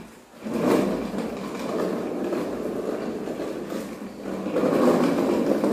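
Plastic wheels of a child's ride-on toy car rolling over a tiled floor: a steady rumble that starts about half a second in and grows louder near the end.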